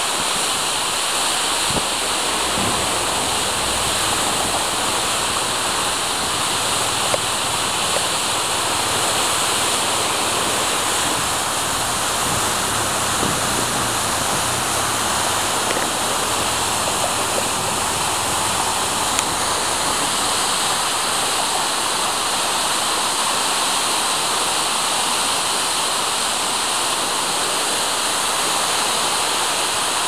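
A 55-metre waterfall roaring as it pours down a rock face: a steady, unbroken rush of water.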